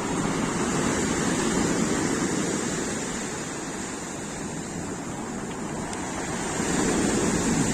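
Storm surf on the Black Sea breaking on the beach: a steady rush of waves that eases a little in the middle and builds again near the end.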